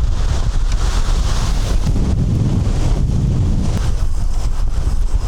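Strong blizzard wind buffeting the microphone in a loud, low rumble, with a higher hiss that swells in gusts over the first two seconds and then eases.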